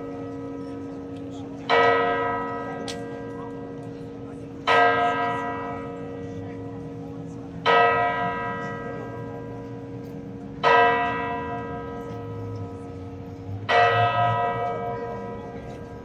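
A large church bell in the Messina Cathedral bell tower tolling slowly. It strikes five times, about once every three seconds, and each stroke rings out and fades before the next.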